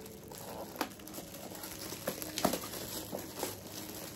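Shiny gift wrapping crinkling and rustling as a present is unwrapped by hand, with scattered short sharp crackles.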